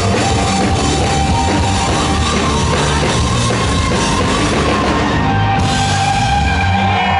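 Rock band playing live and loud: drum kit, electric guitar and bass. The cymbal wash drops out about five and a half seconds in, leaving held notes.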